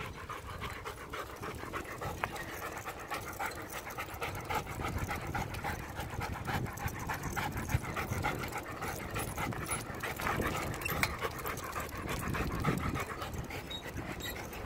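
Long-coated German Shepherd panting fast and steadily, out of breath from running beside a bicycle.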